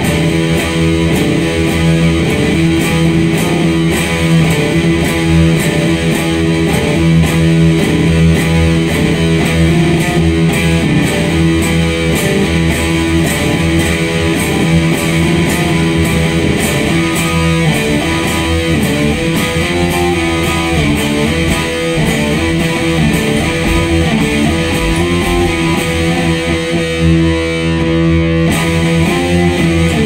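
Sludge metal music: loud electric guitar riffs with heavy low notes over a steady beat.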